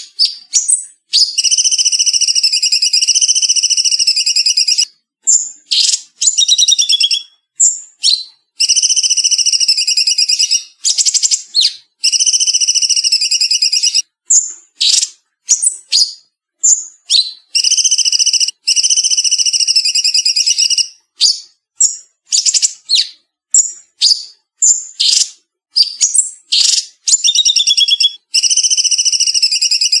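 Cucak cungkok singing a fast, tightly packed song: long rapid trills of two to three seconds each, alternating with strings of short, sharp high calls, with no background noise.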